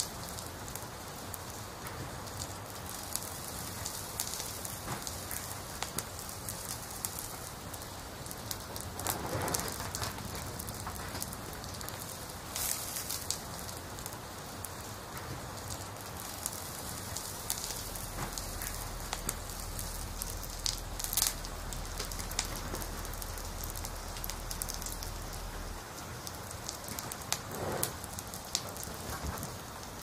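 Wood fire burning in a wood stove: a steady crackling hiss with frequent sharp pops and snaps.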